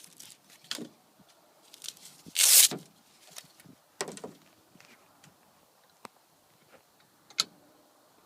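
Scattered clicks and knocks from the WWII US military rifle being handled and readied, with a louder rustling knock about two and a half seconds in.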